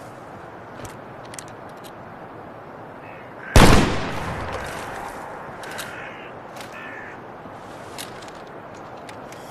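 A single musket pistol shot about three and a half seconds in: one sharp report followed by a tail that dies away over a second or two.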